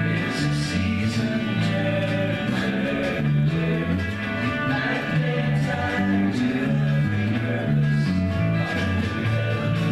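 A recorded rock song with guitars, a moving bass line and singing.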